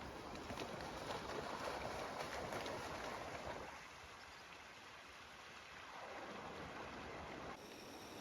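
Faint steady rushing noise, quieter for a few seconds in the middle, with an abrupt change near the end.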